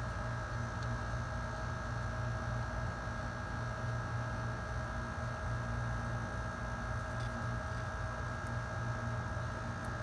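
A steady electrical-sounding hum with a low hiss underneath, unchanging throughout; the hand-threading of the bolt makes no distinct sound.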